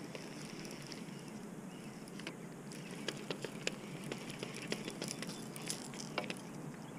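Baitcasting reel being cranked to reel in the line, with faint, irregular small clicks over a steady outdoor hiss.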